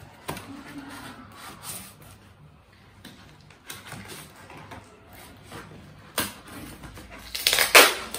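Cardboard mailer and paper packaging rustling and crinkling as a parcel is opened by hand, in scattered short bursts, the loudest a longer crinkle near the end.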